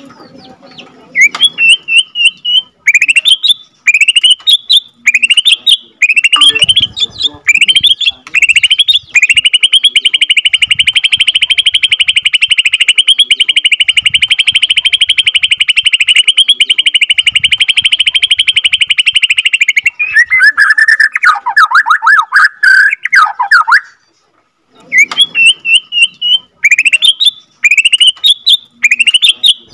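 Caged Borneo murai batu (white-rumped shama) singing loudly. It gives a string of short upward-sweeping whistles, then a long unbroken rapid rolling trill lasting about ten seconds (the 'long roll', ngerol panjang). After that come lower jumbled chattering notes, a brief pause, and the rising whistles again.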